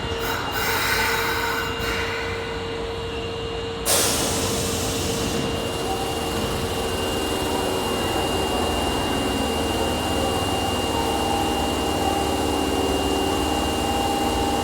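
Osaka Metro 22 series subway train at the station platform: steady running and equipment hum with a thin high whine. A sudden hiss of air sounds about four seconds in and dies away over a second or two.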